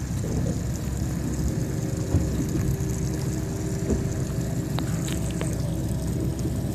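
Motorboat engines running steadily on the water, a constant low rumble with a faint steady hum.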